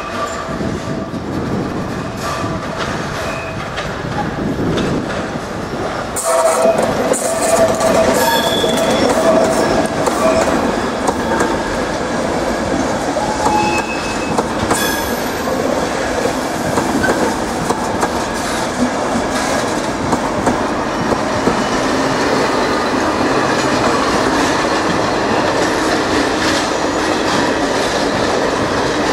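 Electric-hauled passenger train rolling past on curved station track: the wheels clack over rail joints and points, with short bursts of squeal from the flanges. It gets louder about six seconds in as the coaches pass close.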